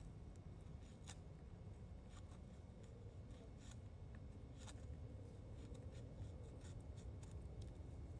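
Silver Fox Bushcraft Knife's blade shaving a wooden spoon blank: faint, short scraping cuts at irregular intervals, roughly one a second, over a low steady background rumble.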